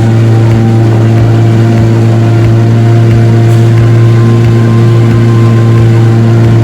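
Tourist boat's engine running steadily with a loud, deep, even hum.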